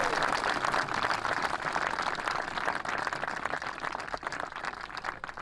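Crowd of guests applauding, the clapping slowly dying down.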